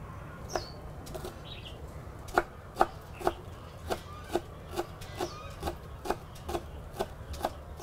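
Large kitchen knife chopping spring onions and coriander on a wooden cutting board: a steady run of knocks, about two to three a second, starting about two seconds in.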